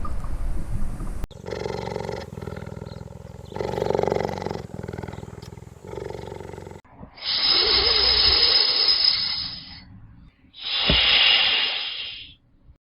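An animal calling: about four short calls, then two long harsh, hissing calls.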